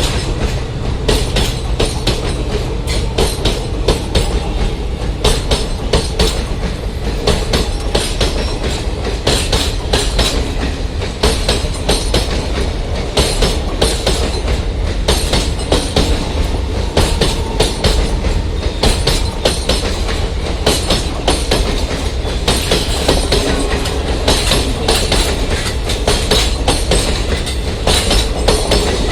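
Diesel-hauled passenger train running past at speed: a loud steady rumble with a dense, fast clatter of wheels over the rail joints.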